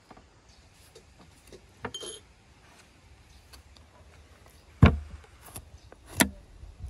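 A knife cutting and working a sheep's head on a wooden cutting board: small cutting and handling noises, then a heavy thump about two-thirds of the way through and a sharp knock a little over a second later.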